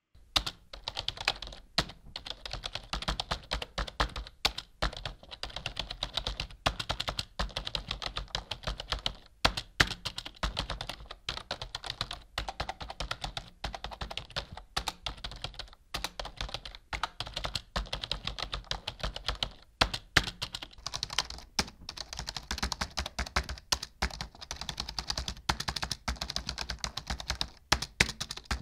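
Typing on a computer keyboard: a fast, continuous run of keystrokes with a few short pauses.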